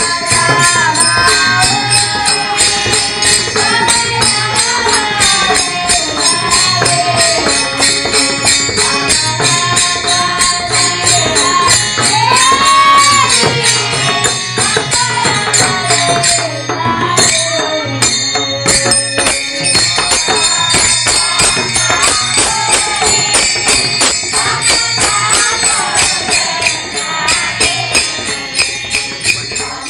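Music: a solo voice singing a wavering melody over fast, steady jingling percussion.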